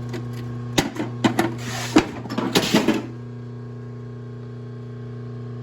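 Steady electric hum of the South Bend Model A lathe's motor running. Over the first three seconds come a series of sharp knocks and clatter as tooling is handled, then only the hum.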